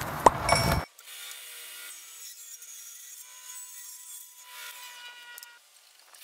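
A sharp knock as a hand grabs a board, then a table saw ripping a thin strip from a beech board, with a steady whine from the cut in the middle of the pass.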